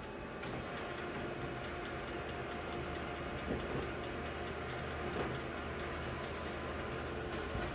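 Colour photocopier running with a steady hum while it goes through its image-stabilising cycle before a copy comes out, with a couple of soft clicks from inside the machine.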